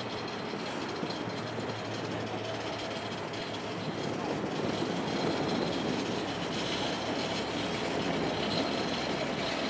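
Steady rumble of passing traffic, growing a little louder from about four seconds in, with a low hum in the first few seconds.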